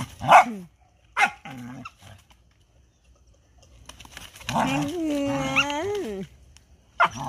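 Dogs at play: two short barks, then a long drawn-out whining call that rises and falls in pitch.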